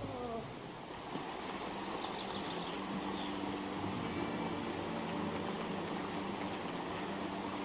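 Steady rush of a forest stream, with a few faint bird chirps early on and a low steady hum joining about three seconds in.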